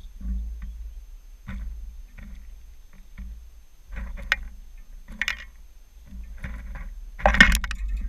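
American robin pecking and rummaging in sunflower seed in a tray feeder close to the microphone: seeds rattling and clicking in short scattered bursts, each with a low rumble under it. The loudest clatter comes near the end as the robin takes off from the tray.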